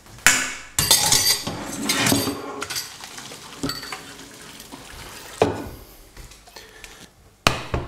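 Pasta being drained: water poured off through a stainless steel colander, with sharp metal clanks of the steel pot and colander, one right at the start, one about five seconds in and one near the end.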